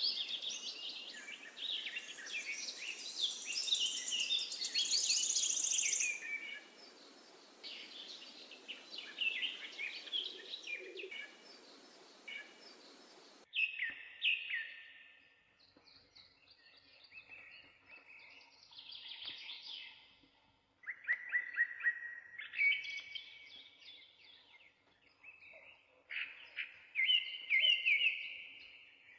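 Birdsong: several birds chirping and trilling in quick, varied phrases. A steady background hiss under them cuts out abruptly about halfway through.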